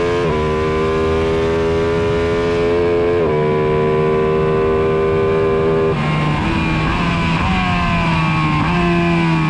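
Superbike engine at full throttle, revs climbing steadily, with quick upshifts a fraction of a second in and again about three seconds in. About six seconds in the throttle closes and the revs fall in steps as it brakes and shifts down for a corner.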